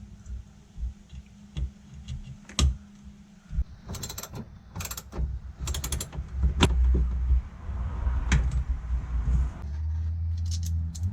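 Hand tools working on metal: scattered clicks and knocks, with a quick run of ratcheting clicks about four seconds in and a low steady hum in the second half.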